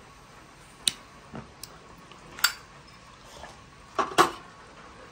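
Trangia gas burner being lit: sharp clicks, loudest about halfway through and two close together near the end, over a faint steady hiss of gas.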